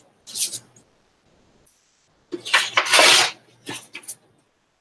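Paper rustling and crackling as a piece of collage paper is handled and worked against a ruler. There is a short burst near the start and a louder one lasting about a second just past the middle, with a few smaller rustles after it.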